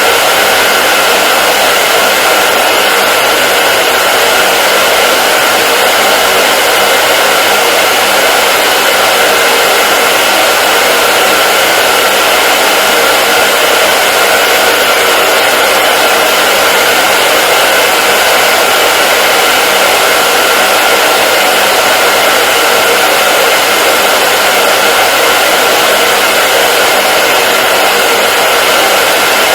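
Hair dryer running continuously with a steady, even blowing noise and a faint steady whine.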